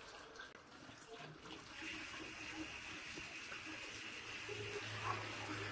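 Tap water running over diced potatoes being rinsed in a plastic colander, splashing out through the mesh onto a concrete floor, growing louder about two seconds in.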